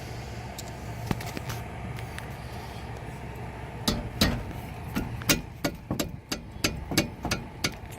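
Sharp metallic clicks from a wrench on the brake caliper bolts, starting about halfway through and coming about three a second, over a steady low background hum.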